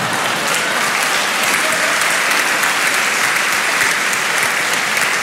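Audience applauding steadily: many hands clapping together.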